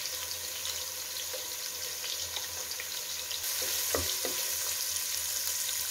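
Sliced onions, bay leaves and whole spices sizzling in hot oil and ghee in a stainless steel stockpot, with ginger-garlic paste just added and a wooden spatula stirring them. The sizzle grows louder about halfway through.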